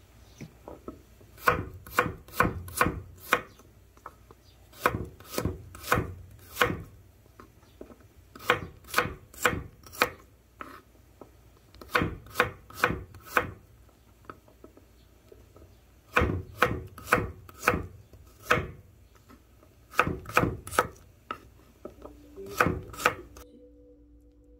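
A kitchen knife slicing peeled garlic cloves on a wooden cutting board. The blade knocks sharply on the board in quick runs of three to five cuts, with short pauses between the runs.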